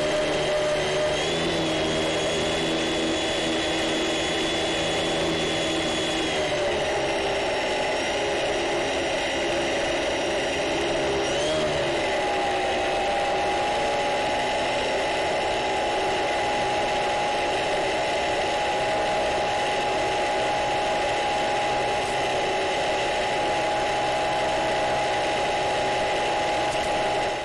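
Electric motor and propeller of a Multiplex Funcub RC seaplane running steadily as the plane moves across the water, a whine with several steady pitches. The pitch drops about seven seconds in, then glides and settles on a new steady tone about twelve seconds in as the throttle changes.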